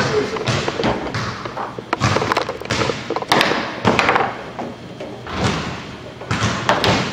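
Foosball game in play: the hard ball knocking against the figures and the table walls, and the rods clacking, as a string of sharp knocks at irregular intervals.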